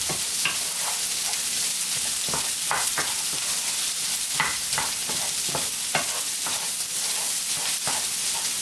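Soyrizo, onion and green bell pepper sizzling in a nonstick frying pan while a wooden spatula stirs them, with scattered scrapes and taps of the spatula against the pan over a steady sizzle.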